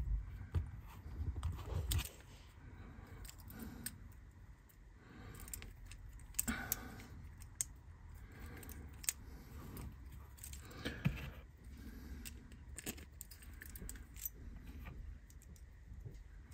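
Scattered light metallic clicks and scrapes of a vintage Hornby Dublo die-cast locomotive chassis being handled by hand as its motor magnet is fitted back in.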